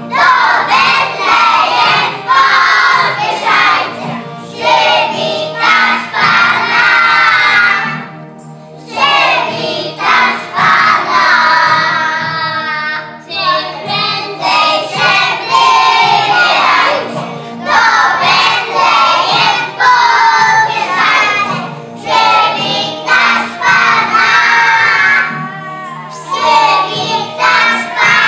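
A group of young children singing a Christmas carol together over steady musical accompaniment, with short breaks between phrases.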